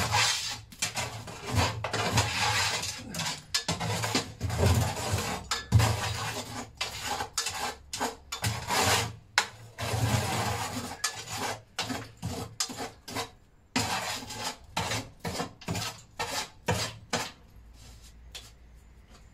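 An old shovel scraping ash and cinders out of the metal ash pan under a portable steam engine's firebox. It makes a rapid, uneven run of scrapes and metallic clinks that thins out and stops near the end.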